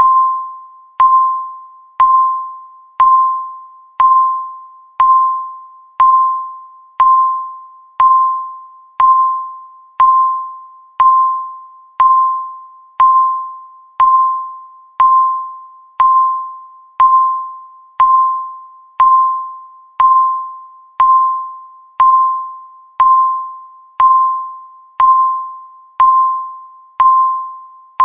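Countdown timer ticking once a second, each tick a short pitched ping that fades quickly, in a steady even rhythm.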